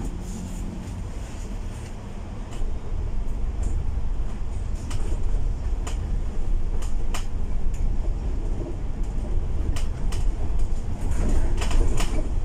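Volvo B8L double-decker bus on the move, heard from inside on the upper deck: a low engine and road rumble that grows louder about two and a half seconds in, with scattered sharp clicks and rattles from the bodywork.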